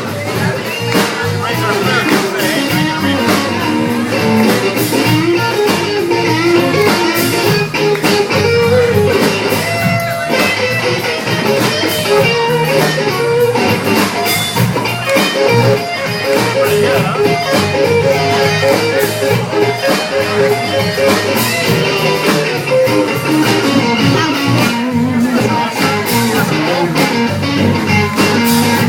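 Live band playing a song, guitar to the fore over drums that keep a steady beat.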